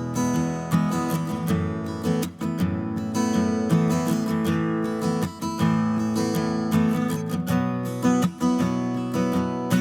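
Background music: a strummed and plucked acoustic guitar.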